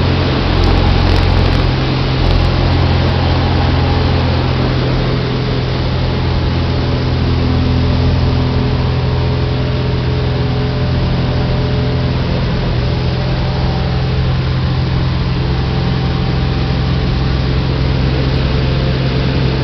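Sonex homebuilt light aircraft's engine and propeller running steadily in flight, heard inside the cockpit as a loud, even drone with wind noise over it.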